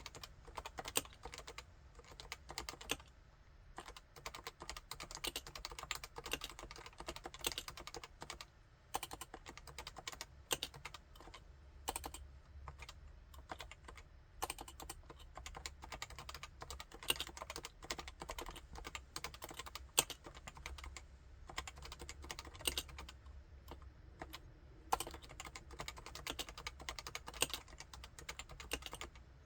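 Typing on a Topre Realforce 87UW (SE07T0) tenkeyless keyboard with Topre electrostatic capacitive switches: a fast, irregular run of keystrokes with a few brief pauses, about three seconds in, near the middle and toward the end.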